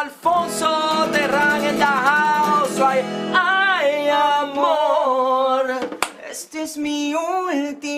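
An acoustic guitar chord strummed once and left to ring for about three seconds while a man sings a sliding melody over it; the voice carries on alone after the chord dies away, with one sharp clap about six seconds in.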